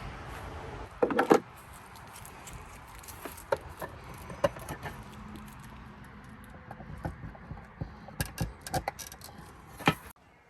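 A series of clinks, clicks and knocks from small hard objects being handled and moved about, with a louder clatter about a second in and a quick run of clicks near the end.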